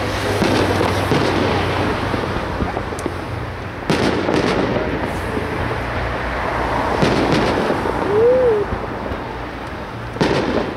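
Fireworks display: aerial shells bursting with sharp bangs, about four seconds in, about seven seconds in and near the end, over a continuous noisy din from the display. Just past the middle a brief whistle-like tone rises and falls.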